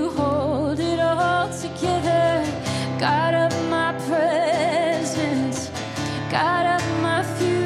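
A woman singing a slow worship song, her held notes wavering with vibrato, over her own strummed acoustic guitar.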